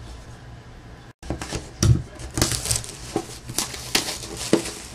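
Hands handling and opening a sealed cardboard baseball trading-card box: crinkling and tearing of the wrapping with a series of irregular sharp taps and scrapes of cardboard. The sound cuts out completely for a moment about a second in.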